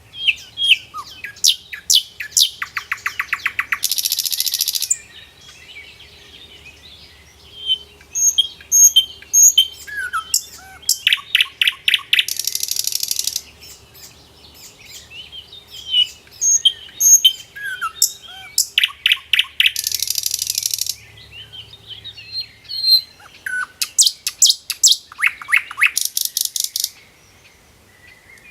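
Bird singing in repeated phrases of quick chirps, rapid trills and a harsh buzzy note. The phrase comes about every eight seconds, with short pauses between.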